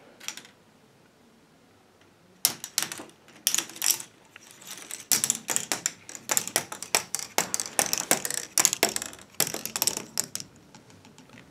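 A K'NEX ball rolling and clattering down the caged helix and radial maze of a K'NEX ball machine, plastic ball on plastic rods and connectors. It is a quick, uneven run of clicks and rattles that starts a couple of seconds in and dies away near the end.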